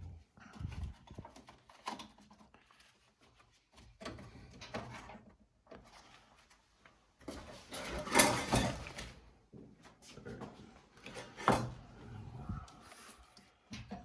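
Dryer parts being handled during a repair: scattered clicks, knocks and rattles of plastic and metal, with a louder scraping rustle lasting about a second and a half around eight seconds in and a sharp clatter a few seconds later.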